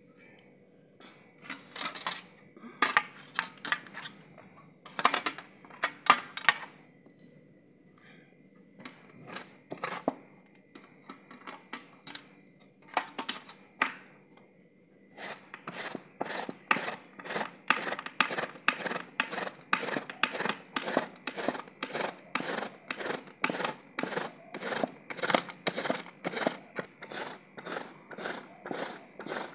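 A peeled bottle gourd grated by hand on a metal box grater over a steel plate. First comes some scattered clatter and scraping as the steel bowl and grater are handled. From about halfway in, grating strokes run in a steady rhythm of about two strokes a second.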